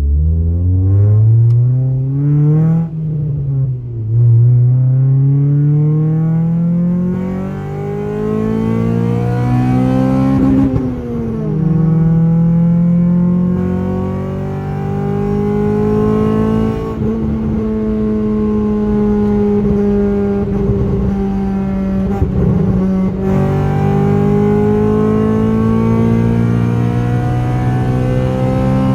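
Honda Civic VTi's four-cylinder VTEC engine heard through a Varex valved exhaust while the car is driven: the revs climb and drop sharply twice, about 3 and 11 seconds in, as gears change, then hold a fairly steady pitch with small rises and dips.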